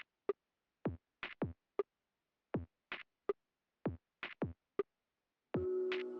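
Background music: a repeating pattern of short electronic drum hits, each dropping in pitch, with dead silence between them. A sustained synthesizer chord comes in near the end.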